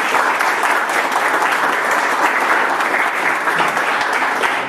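A small seated audience applauding steadily.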